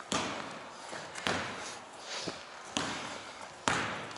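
A basketball hitting the hard court floor, four or five separate thuds at uneven spacing, each ringing on in the echoing hall.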